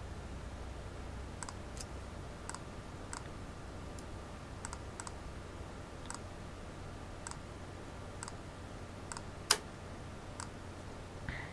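Computer mouse clicking: about a dozen single clicks at uneven intervals, with one much louder click about nine and a half seconds in, over a faint low hum.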